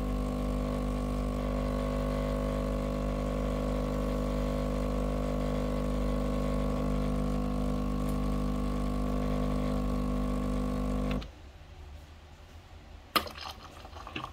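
Breville Barista Pro espresso machine's vibratory pump humming steadily while pulling a lungo shot, then cutting off suddenly about eleven seconds in as the shot ends. A sharp click follows about two seconds later.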